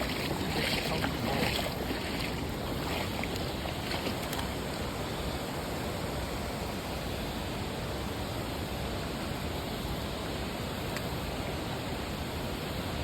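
Creek water flowing steadily, with a few brief crackling handling sounds in the first four seconds.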